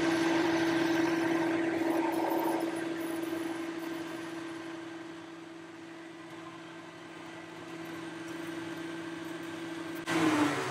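Boxford lathe running with a steady whine while a ball-turning tool cuts a ball end on a steel chuck-key bar. The cutting noise is loudest in the first few seconds, then dies down. Near the end a sudden louder rasp starts as emery cloth is put to the spinning ball.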